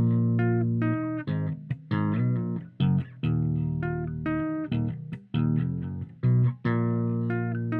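Ernie Ball StingRay 5 five-string bass played through a 1970s Traynor Bassmaster amp, heard dry with the compressor bypassed: a line of plucked notes, some short and some held.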